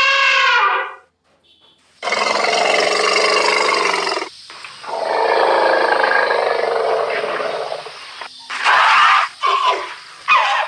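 Wild elephant calling: a harmonic trumpet that ends just under a second in, a brief pause, then two long, rough roars, followed by shorter choppy calls near the end.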